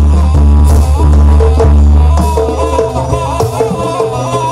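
Jaranan dance music: drums and rattling percussion under a wavering high melody line, with a heavy deep bass that drops out a little over two seconds in.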